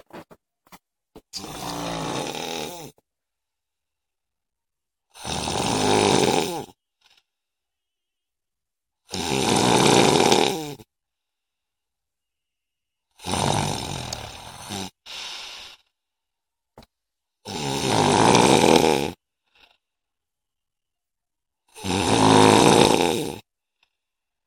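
A woman snoring: six long snores, one about every four seconds, each lasting a second and a half to two seconds, with silence between them. The first snore is a little quieter than the others.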